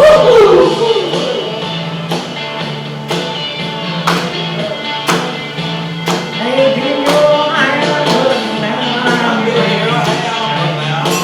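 Live band music with a steady beat: sharp strikes about once a second over a sustained low bass line, with a voice heard briefly near the start and again in the second half.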